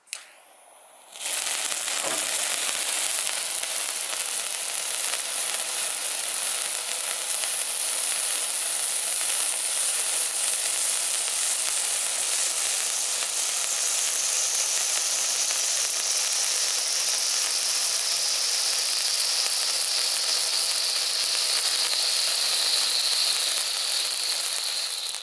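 Two Cialfir Huevos egg-shaped F1 fountain fireworks spraying sparks: a steady, dense hiss that starts about a second in. A high tone within the hiss slowly falls in pitch over the second half.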